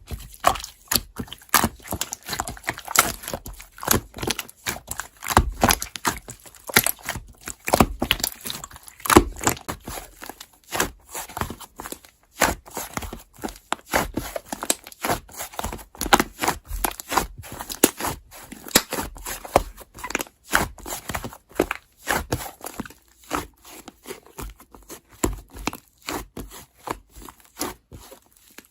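Slime being kneaded and pressed by hand, giving a continuous run of irregular sticky pops and crackles.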